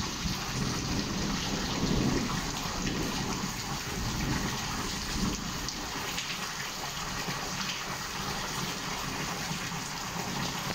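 Rain falling steadily in a thunderstorm, with low rolling thunder rumbling underneath, loudest about two seconds in.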